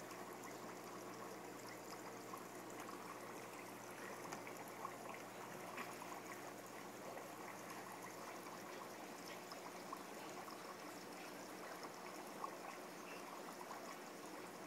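Faint, steady trickling and bubbling water from a TV aquarium screen saver's soundtrack, with scattered small pops.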